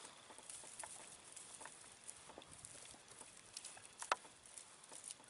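Faint outdoor hush with scattered light clicks and taps, one sharper click about four seconds in.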